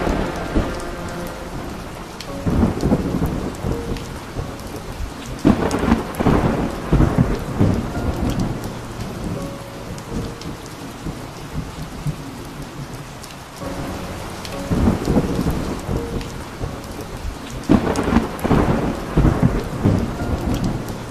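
Heavy downpour of rain, steady throughout, with thunder rumbling four times in long rolls that swell and fade.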